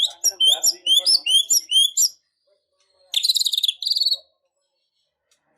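White-rumped shama singing: a fast run of repeated high whistled notes, about four or five a second, for two seconds. After a short pause comes a buzzy, insect-like trill lasting about a second.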